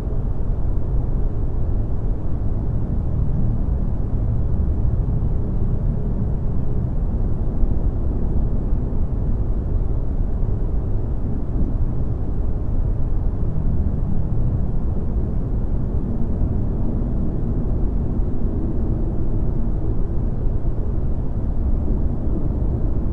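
Steady, deep rumbling noise at an even level, with faint held tones underneath: a continuous ambient drone track.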